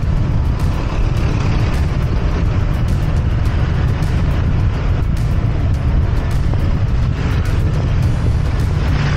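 Steady, loud wind rumble on the camera's microphone while riding a motorcycle, with the motorcycle engine running underneath at an even pace.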